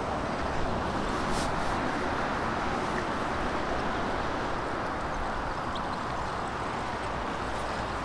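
Steady rush of strong wind buffeting the microphone, with a deep rumble underneath, on a moving bicycle.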